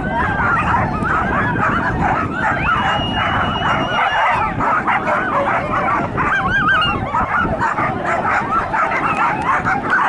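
Excited sighthounds yelping and whining without a break, many high wavering cries overlapping, with one long held whine from about two and a half to four seconds in.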